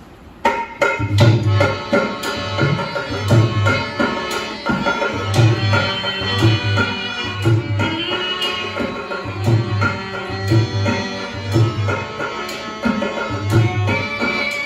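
Rajasthani folk music accompanying a puppet show: a hand drum plays a steady rhythm with deep strokes about once a second, under a sustained melodic instrument. It starts about half a second in.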